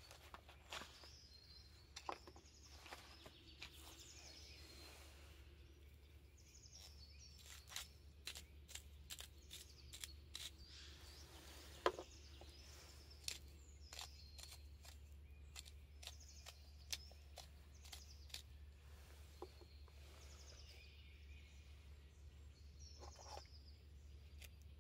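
Faint chirping of small birds at intervals, with scattered light clicks and knocks from small food containers and utensils handled on a stone table; the sharpest knock comes about halfway.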